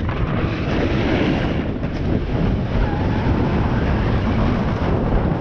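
Snowboard sliding and scraping over chopped-up snow at speed, with wind buffeting the microphone as a steady rushing noise.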